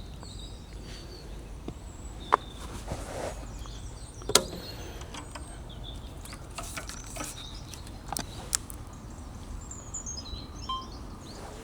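Small birds chirping now and then over a steady low background noise, with a few sharp clicks, the loudest about four seconds in.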